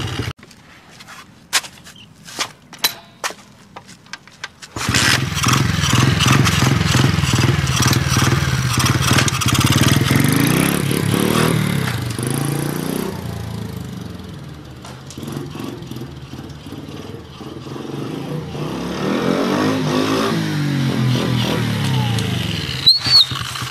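After a few seconds of quiet broken by a few clicks, a 50cc pit bike engine runs as the bike is ridden around, its revs rising and falling, fading for a few seconds and then coming back louder. The engine is being held on the throttle because the makeshift duct-taped throttle set-up won't let it idle.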